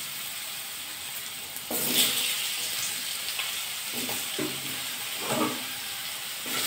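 Potato wedges sizzling in hot mustard oil in a wok. The sizzle grows louder about two seconds in as more wedges are laid into the oil.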